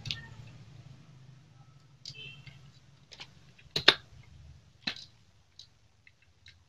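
Light metal clicks and clinks, a handful of scattered taps with the loudest a little under four seconds in, as the steel transmission gear shafts and shift drum of a Yamaha Jupiter Z engine are seated by hand into the aluminium crankcase half.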